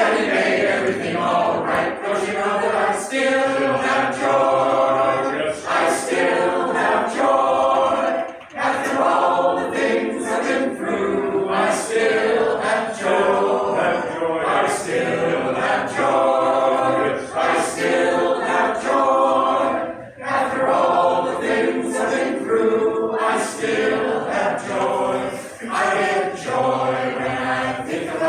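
Choir singing a gospel song, several voices together in continuous sung phrases.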